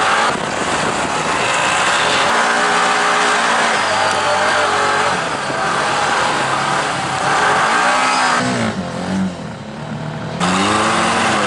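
Side-by-side UTV engines revving up and easing off over a steady rush of wind and sand noise on the hood-mounted camera. The sound changes abruptly twice, about eight and a half and ten seconds in, where the footage is cut.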